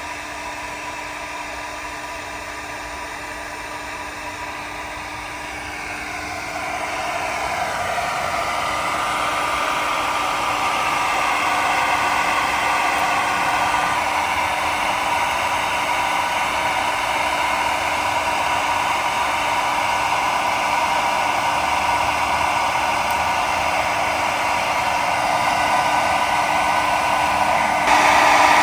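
Handheld hair dryer blowing steadily, heating the glue of a tire sticker so it can be peeled off. It grows louder over the first several seconds and steps up once more near the end.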